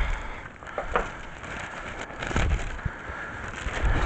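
Rustling handling noise from a handheld camera being moved about, with a low rumble and a few light knocks.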